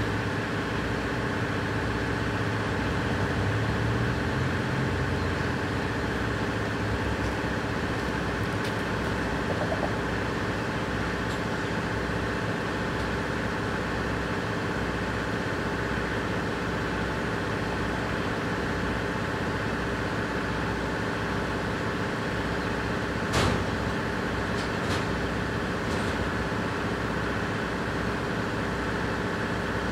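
EMD 16-645 diesel engines of GP38-2 locomotives idling steadily. A sharp click sounds once about 23 seconds in.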